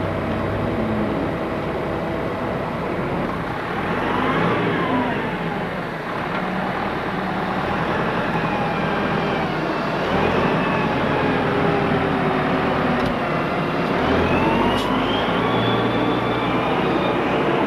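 Tractor and loader engines running steadily, with the engine pitch rising and falling as the machines work.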